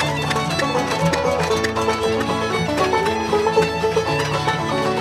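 Background string-band music with a fiddle over plucked strings, in a bluegrass style.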